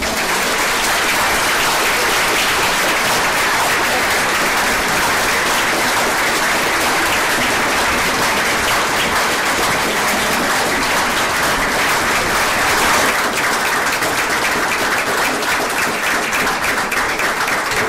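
Audience applauding: dense, steady clapping that breaks out all at once and holds at full strength throughout.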